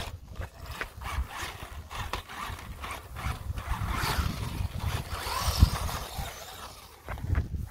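A WLToys 12427/12428 RC off-road car driving over grass, its small electric motor whirring, with wind rumbling on the microphone. One sharp knock a little over halfway through.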